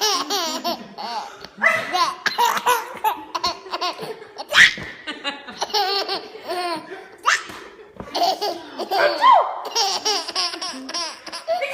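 A 15-month-old baby laughing hysterically in repeated bursts of belly laughs, with short breaks between them.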